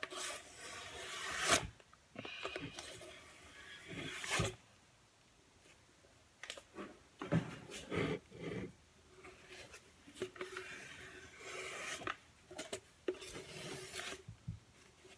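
Scraps of paper bag rubbed and scraped over glue to smooth it flush, in short irregular strokes with a quiet pause about five seconds in.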